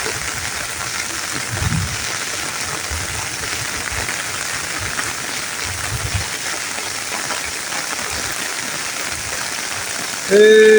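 Steady heavy rain pouring down, an even hiss of drops, with two short low thumps along the way.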